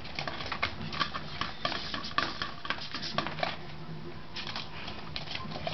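Vertical blind slats clattering as a cat paws and bangs at them: quick irregular clacks, with a short lull a little past the middle before they start again. It is her way of asking to be let outside.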